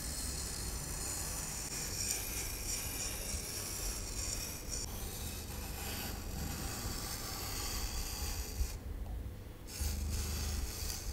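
Pen tip scratching across a sheet of paper as long lines are drawn, a continuous rasping rub that breaks off for about a second around nine seconds in.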